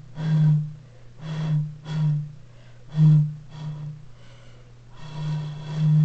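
Breathy, low hoots from blowing across the mouth of a 1-liter bottle, a homemade train horn: five short blasts, then a longer one about five seconds in.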